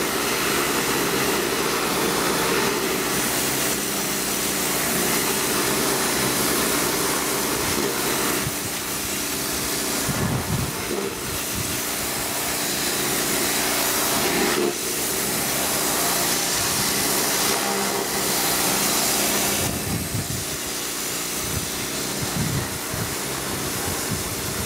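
Pressure washer running steadily: the machine's steady hum under the loud hiss of a high-pressure water jet blasting concrete stair treads.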